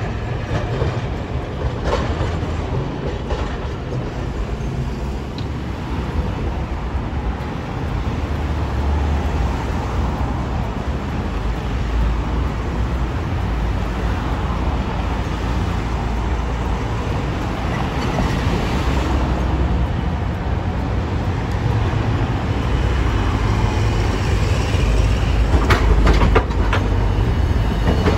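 Hiroshima Electric Railway streetcars rolling over street track and points: a steady rumble that grows louder as a modern low-floor tram approaches and passes close near the end, its wheels clicking several times over the rail crossings.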